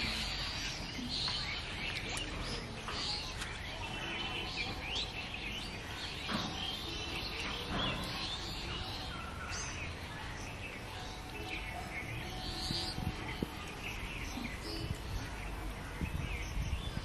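Outdoor ambience of birds chirping and calling in short scattered notes over a steady low background noise.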